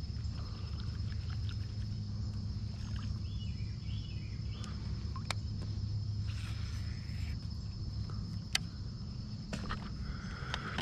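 Outdoor ambience on a kayak: a steady low rumble with a faint, steady high insect drone, a few light clicks of gear handling, and a brief run of small chirps a few seconds in.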